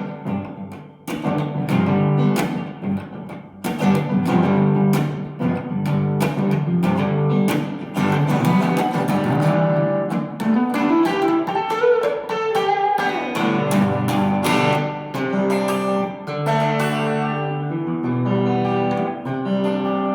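Fender HSS Telecaster electric guitar with alnico pickups, played through a Vox AC30 amp: a run of picked chords and single notes. Around the middle a note glides up in pitch and back down.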